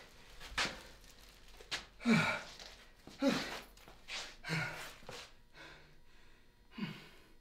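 A man breathing hard, letting out a series of heavy sighing exhalations, several trailing off in a falling groan: out of breath after hauling a heavy plastic-wrapped bundle.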